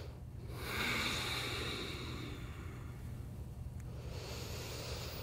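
A woman's slow, audible breath during a held yoga stretch: one long exhale that starts about half a second in and fades away over a couple of seconds.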